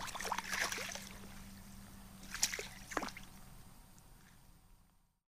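Water sloshing and splashing in an ice-fishing hole as a released trout swims down out of sight, then a couple of single drips about two and a half and three seconds in as the sound fades away; it cuts to silence near the end.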